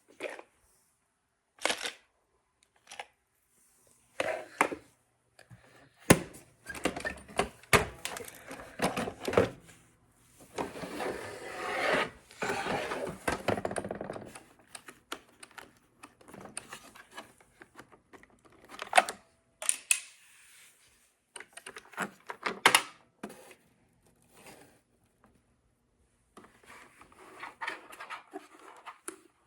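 Small hard plastic pieces, LEGO bricks, clicking and clattering against the plastic of a robot vacuum's removed dustbin. Scattered knocks with a denser rattle lasting several seconds around the middle.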